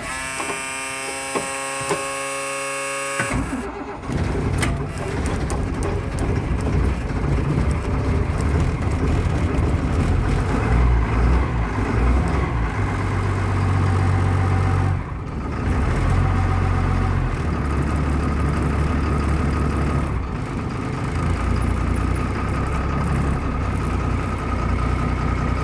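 1996 Blue Bird school bus's diesel engine cold-started after about three weeks sitting unused. The starter whines steadily for about three seconds, the engine catches about four seconds in, and then it runs roughly, its speed rising and falling as the throttle is worked.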